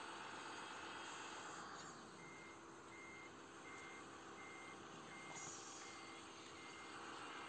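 Faint, evenly spaced reversing-alarm beeps from a scale RC wheel loader, starting about two seconds in at roughly three beeps every two seconds, over a steady low hum of the model running.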